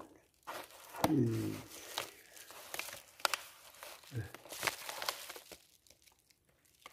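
Paper mailer envelope crinkling and tearing as it is worked open, in scattered rustles and sharp crackles, with a short vocal sound about a second in.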